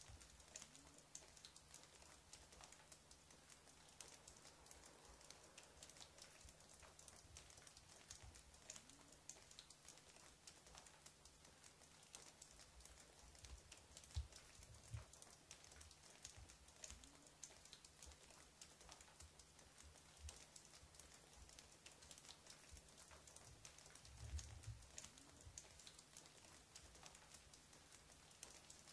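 Near silence with faint scattered crackling clicks over a low steady hum, and a couple of soft low thumps, one about halfway through and one near the end.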